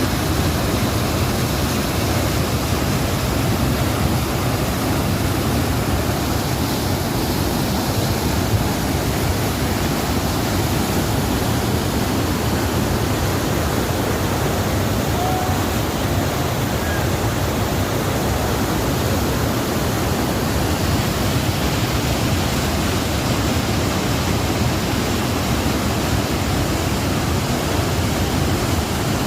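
Fast-flowing water of the Kunhar River rushing steadily, an even, loud hiss of moving water.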